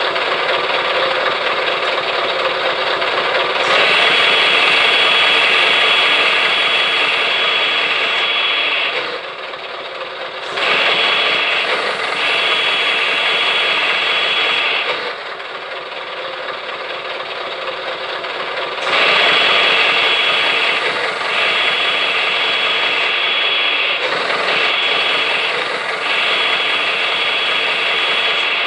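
Hydraulic system of a scale RC MAN 8x8 truck running: a steady mechanical drone, with a high whine that comes in three louder spells of several seconds as the outrigger legs extend and retract.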